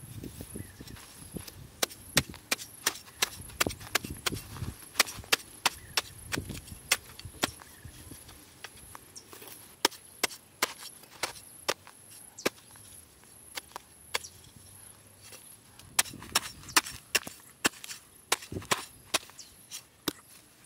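Wood being chopped with a hand tool: sharp, irregular knocks at about two a second, in two runs with a lull between.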